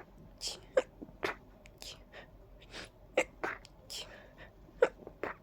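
A person with an allergy-stuffed nose sniffing and catching short, sharp breaths, about a dozen in quick succession, during a sneezing fit as a sneeze builds.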